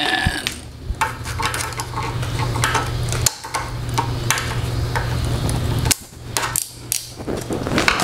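Scattered small clicks and taps of a plastic zip tie and a small screwdriver being worked around ribbon cables, over a steady low hum.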